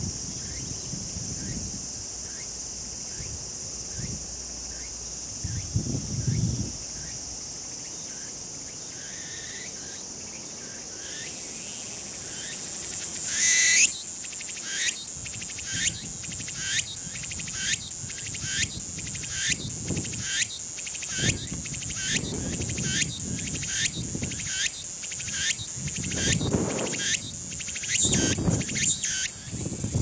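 Meimuna opalifera (tsukutsuku-boshi) cicada singing. A steady high hiss builds into a rising buzz about halfway through, then the song runs as a string of loud, evenly repeated phrases about one a second, coming faster near the end.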